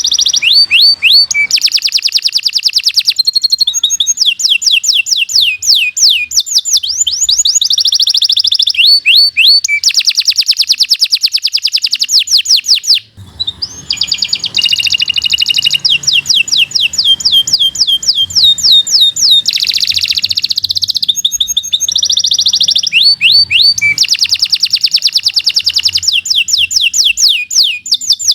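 Domestic canary singing a long, continuous song of fast rolling trills and rapid repeated sweeping notes, changing from one trill to the next every second or two, with a brief break about halfway through.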